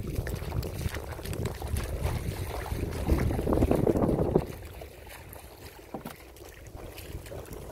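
Wind buffeting the microphone, rumbling hardest about three to four seconds in, then dropping to a lighter rush with a few small clicks.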